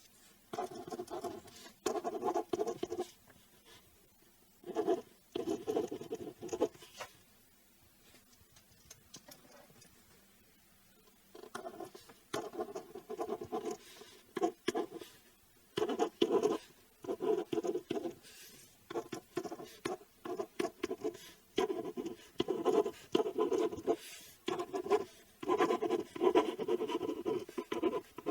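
Ballpoint pen writing on paper: irregular runs of scratchy strokes with short breaks between words, and a pause of a few seconds about a quarter of the way in.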